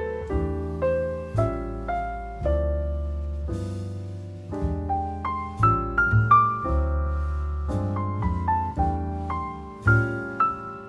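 Background music: a gentle piano piece with sustained low bass notes under a slow melody of struck, ringing notes.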